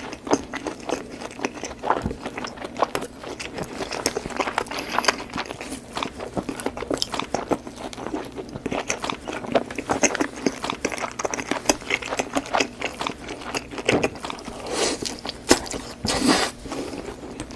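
Close-miked crunching and chewing of Cheetos Cheese Balls: many sharp, irregular crunches and crackles as the puffed corn snacks are bitten and chewed.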